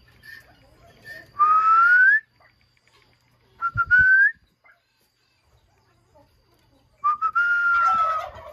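A person whistling three times: two short rising whistles, then a longer one that holds its pitch and slowly falls near the end.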